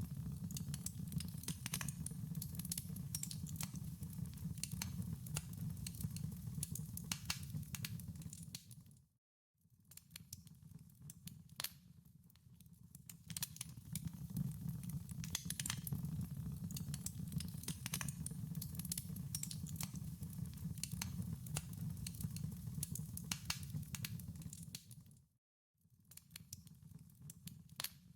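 Wood fire crackling in a fireplace: dense, irregular pops and snaps over a low, steady rumble of the flames. The sound cuts out briefly twice.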